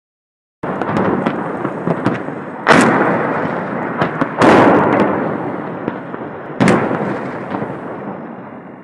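A run of explosions at the steelworks. Three big blasts come at about three, four and a half, and six and a half seconds, each rolling off in a long echo. Smaller sharp cracks fall between them over a continuous rumble.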